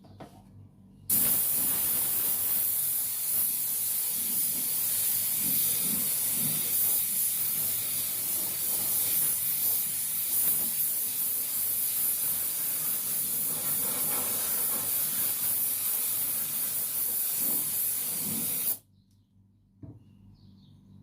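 A long, steady high hiss of spraying that starts abruptly about a second in and cuts off abruptly near the end.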